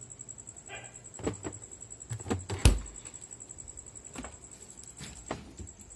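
A handful of short knocks and clunks, the loudest and sharpest about two and a half seconds in, as an old refrigerator used for storing tools is handled and the things inside it are shifted, over a steady thin high-pitched tone.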